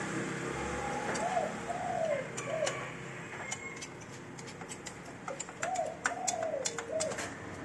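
A dove cooing: two runs of about four arched coos each, one starting about a second in and one just past halfway. Light, sharp clicks of a screwdriver working screws in the copier's metal frame come in between and over them.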